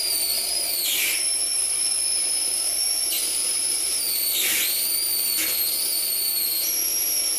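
High-voltage corona discharge hissing from the tip of a wire beside a metal sphere, fed from a capacitor bank through a 2-megohm resistor. It makes a steady, high-pitched whine over a hiss, shifting pitch in small steps and sputtering briefly about a second in and again near the middle.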